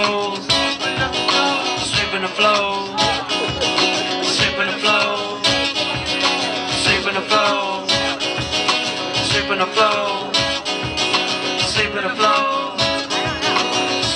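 An acoustic guitar and a drum kit play a song's instrumental intro together, with a steady beat and a melody line that bends between notes.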